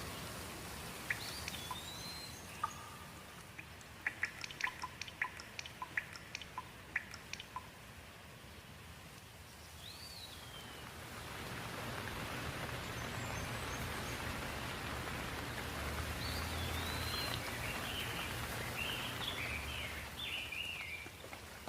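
Rain falling, with scattered sharp drips in the first half and birds chirping now and then. About halfway through the rain thickens into a louder, steady fall.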